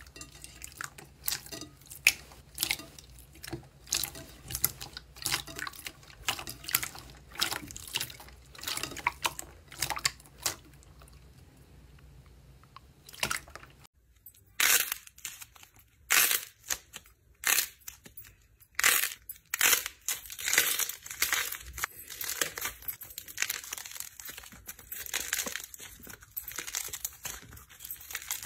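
Hands working slime, with irregular wet clicks and pops as a clear pink jelly-like 'fake water' slime is pressed and stretched. About halfway through, a blue squeeze-ball slime toy is squeezed and kneaded, and the clicks give way to louder, denser crackling and popping.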